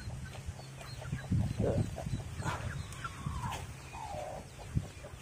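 Chickens clucking: a handful of short calls spread over a few seconds, over a low steady hum.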